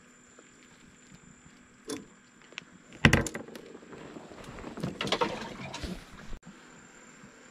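A sharp knock about three seconds in, followed by a quick run of clicks and then rustling, as fishing gear is handled in a small aluminium boat.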